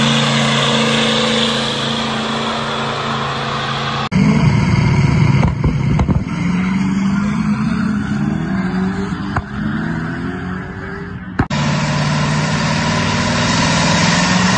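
Diesel V8 pickup engine running hard in three abruptly cut clips. A steady high-rev run comes first. From about four seconds in, the engine pulls with its pitch rising again and again. From near the end it holds a steady full-throttle run on a chassis dyno.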